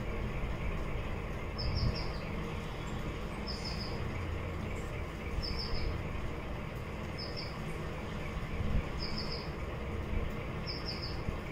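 A bird repeating a short call of three or four quick high chirps about every two seconds, six times, over a steady low rumble.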